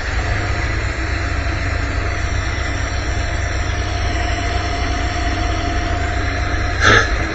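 Dodge Tradesman van engine idling steadily, shortly after a cold start, heard up close through the open engine cover. A short louder noise comes just before the end.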